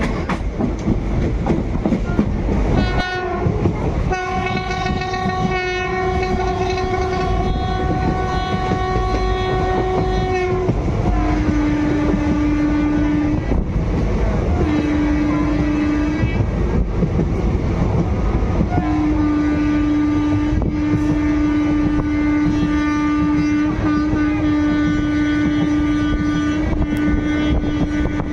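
Train horn sounding in several blasts over the steady running noise of the train, heard from inside a moving carriage. A short blast comes about three seconds in, then a long higher-pitched blast of about six seconds. After that come lower-pitched blasts: two short ones and a long one of about ten seconds to the end.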